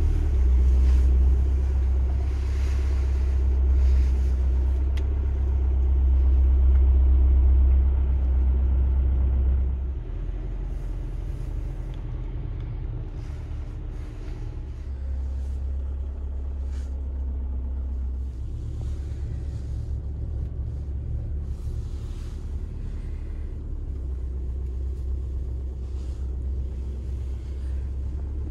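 Volkswagen van's diesel engine and road noise heard from inside the cab: a steady low rumble, louder for the first ten seconds or so, then dropping to a quieter level as the van slows.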